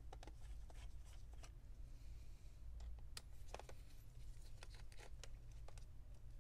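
Scattered light clicks and ticks at irregular spacing, with a brief scrape about two seconds in, from a Phillips screwdriver turning screws in a laptop's bottom cover and from gloved hands handling the case. A low steady hum runs underneath.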